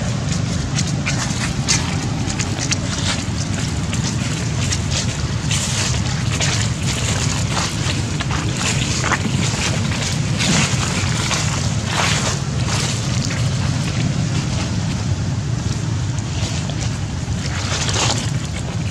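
Wind buffeting the microphone as a steady low rumble, with scattered crackles and rustles throughout.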